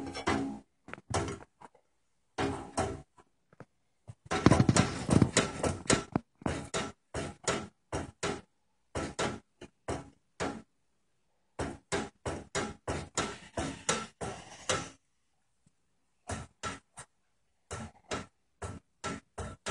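Window blind slats clicking and clattering as a cat paws at a row of them, in runs of quick clicks a few a second, with a dense flurry about four seconds in and short pauses between runs.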